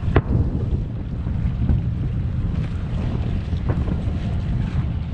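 Distant aerial firework shells bursting: three sharp reports, the first the loudest, over a steady low rumble of wind on the microphone.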